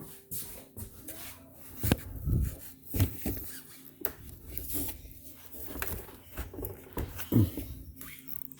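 Knocks, clicks and rubbing of plastic parts as a Samsung refrigerator's ice maker assembly is handled, with a steady low hum underneath.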